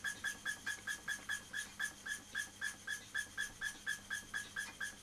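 Philcraft miniature steam beam engine running, giving a regular high-pitched whistling chuff with each stroke, about four a second and slowing a little near the end.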